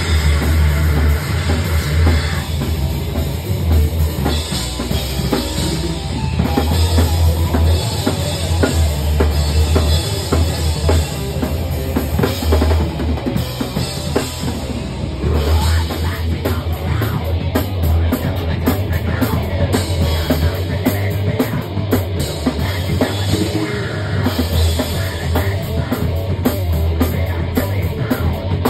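Live heavy metal band playing loud: distorted electric guitar over bass and drums with crashing cymbals.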